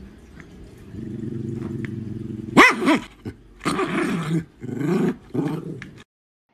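A dog growling low and steadily, then giving three loud, drawn-out barks that bend in pitch; the sound cuts off suddenly about six seconds in.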